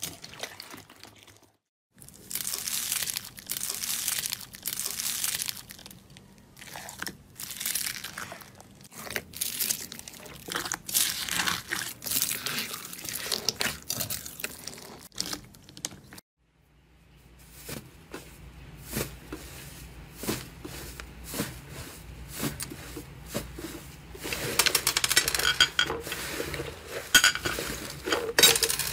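Hands squeezing and kneading slime in a bowl: dense crackling and popping, with foam beads crunching in the slime. The sound breaks off briefly about two seconds in and again about sixteen seconds in, where one slime clip gives way to the next.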